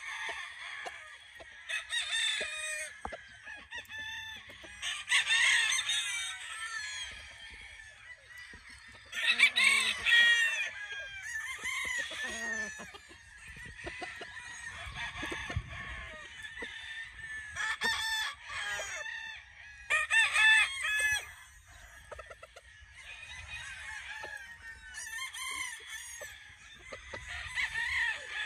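Several roosters crowing again and again, their calls overlapping now and then, with the loudest crows about ten and twenty seconds in.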